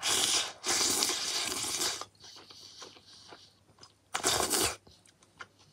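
Instant noodles in broth slurped from the bowl with chopsticks: a long, loud slurp of about two seconds, softer chewing sounds, then a second short slurp about four seconds in.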